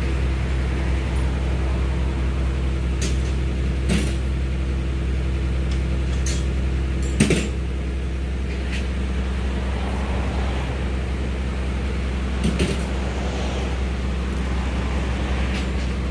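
Tractor engine idling steadily, with a few sharp knocks on top; at the loudest knock, about seven seconds in, the engine's hum drops a little.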